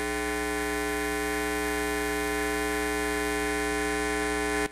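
Steady electrical mains hum, a buzz made of a stack of even tones, that drops sharply in level right at the end.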